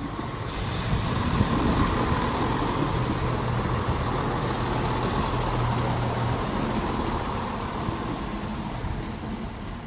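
Turbostar diesel multiple unit running into the platform, its underfloor diesel engines giving a steady low hum over a rumbling, hissing train noise. The noise swells about half a second in and slowly eases off as the train slows.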